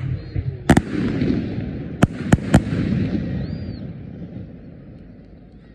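Aerial fireworks bursting overhead: a sharp bang under a second in, then three more close together around two seconds in. Each is followed by a rumbling echo that fades away.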